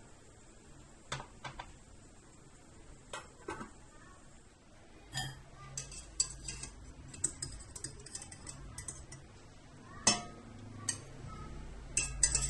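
A few scattered clicks, then from about five seconds in a run of light metallic clinks and knocks: a wire spider strainer tapping and scraping against a metal pot while chicken bones are fished out of broth.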